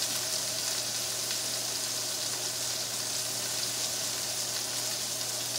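Meat sizzling in a hot cast-iron skillet: a steady, even frying hiss.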